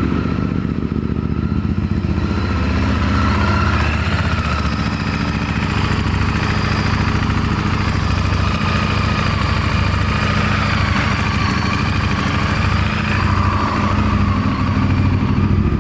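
Honda VTR1000 Firestorm's 90-degree V-twin idling steadily just after an oil and filter change, with the new oil circulating and oil pressure up.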